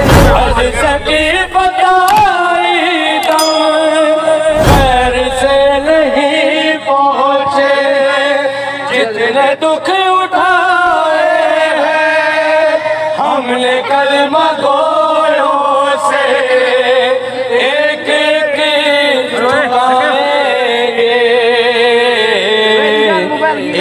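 A male voice singing a devotional manqabat in long, drawn-out melodic phrases, with two deep thumps, one at the start and one about five seconds in.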